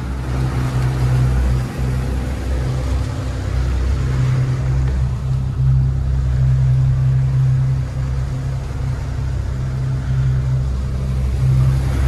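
Twin Yamaha 250 hp outboard engines running steadily under forward power at about 6 knots, a constant low drone with a hiss of water and wind over it. The hiss thins out about five seconds in while the drone carries on.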